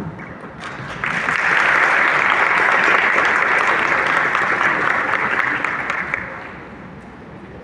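Audience applauding, swelling about a second in and dying away after about six seconds.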